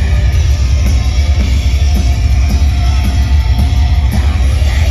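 Black metal band playing live: dense distorted electric guitar over drums and bass, loud and continuous, heard from within the audience with a heavy, boomy low end.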